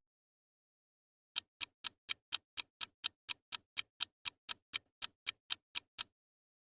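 Clock-style ticking used as a countdown timer: about twenty sharp, even ticks at roughly four a second, starting about a second and a half in and stopping near the end.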